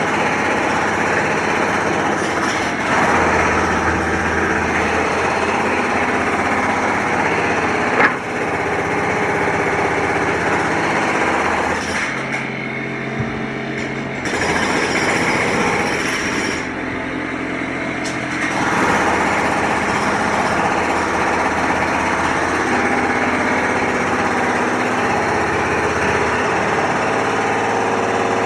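Construction site noise: machinery engines running steadily under dense mechanical clatter, with a single sharp knock about eight seconds in. The high clatter drops away twice for a couple of seconds, about twelve and seventeen seconds in.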